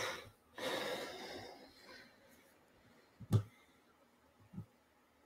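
A man breathing audibly close to a microphone, two breaths in the first second and a half, then a sharp knock a little over three seconds in and a softer thump about a second later.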